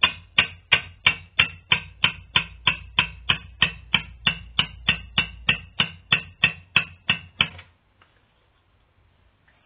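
Hammer tapping a steel pin punch against a Triumph Stag carburettor part, metal on metal, to drive a piece out. The taps come steadily at about three a second and stop about three-quarters of the way through.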